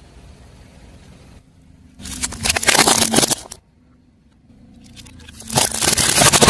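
Car tyre rolling over and crushing crunchy objects: a burst of crackling and crunching about two seconds in, then a second one building near the end, over a low hum.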